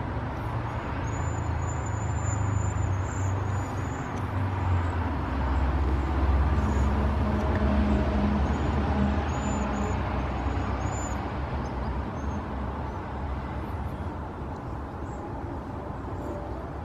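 Steady road traffic rumble that swells as a vehicle passes about halfway through, with faint, very high, thin calls of cedar waxwings near the start and again around ten seconds in.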